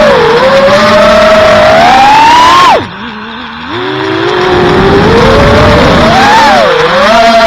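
5-inch FPV quadcopter's brushless motors and propellers whining, the pitch climbing with throttle. Near three seconds in the throttle is cut and the sound drops abruptly, then it spools back up and rises and dips with throttle changes.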